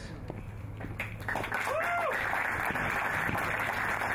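Audience applauding, swelling up about a second in and holding steady, with one rising-and-falling shouted cheer from the crowd about two seconds in.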